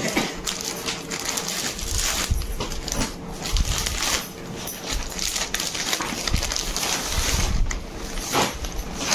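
Clear plastic saree covers and a courier pouch crinkling and rustling as they are handled, with many short crackles.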